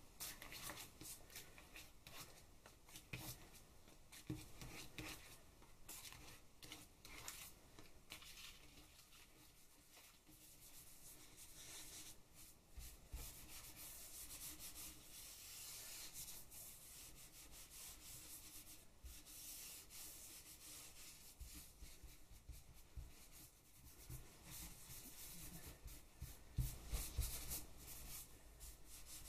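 Faint dry rubbing of a hand over paper on a monoprint plate, in uneven strokes, with a few louder strokes near the end.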